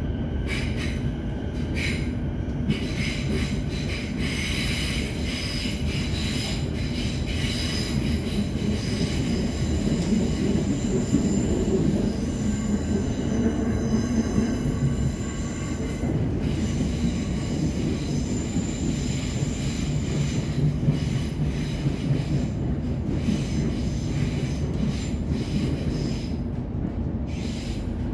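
Electric suburban train running, heard from inside the carriage: a steady rumble of wheels on track with several high-pitched tones over it, squealing for most of the stretch and fading near the end.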